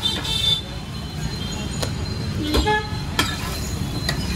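Metal spatula scraping and clicking on an iron tawa over a steady low roar from the stall's gas burner, with a brief high toot in the first half second.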